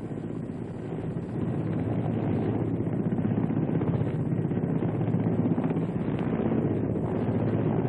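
Helicopter in flight heard from inside the cabin: a steady engine drone with a fast, even rotor chop, swelling slightly over the first two seconds and then holding.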